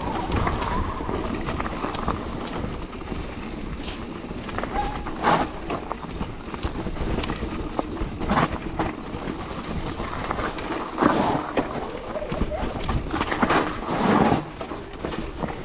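Mountain bike riding along a forest dirt trail: a steady low rumble of tyres and wind, with sharp clatters from the bike over bumps several times.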